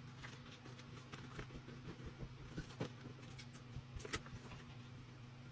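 Rustling and crinkling of a sheet of sticker labels being handled, with a few sharp clicks a little past the middle and the loudest about four seconds in. A steady low hum runs underneath.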